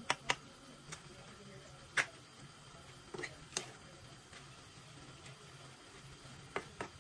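Metal spoon stirring chopped meat in a nonstick frying pan, clicking and tapping against the pan now and then: a few sharp, irregular taps over a low steady hum.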